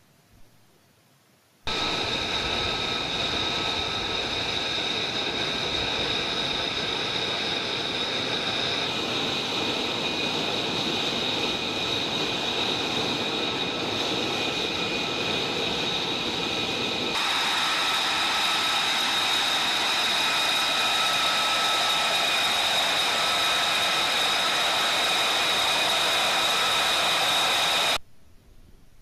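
An F-35's jet engine running on the ground: a steady rushing noise with a high whine on top. It starts suddenly about two seconds in, changes tone twice and cuts off just before the end.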